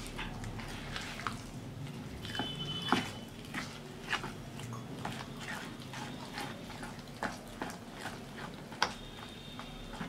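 A spoon stirring thick rice-flour batter in a bowl: wet squelching with irregular clicks and scrapes of the spoon against the bowl. Two brief high squeaks, about two seconds in and near the end.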